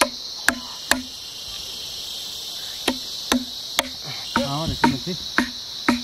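A hammer striking a steel chisel driven into a wooden log: sharp knocks in quick runs of about three, with pauses between. A steady high insect chorus runs underneath, and a short voice is heard past the middle.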